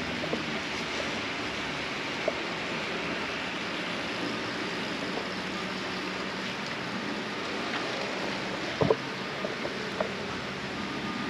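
Steady even hiss of room noise, with a few faint clicks and a brief knock about nine seconds in.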